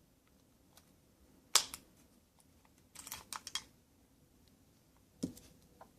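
Small clicks and taps of a baitcasting reel's parts being handled as its spool is taken out: one sharp click, a quick cluster of several clicks about halfway, and another click near the end.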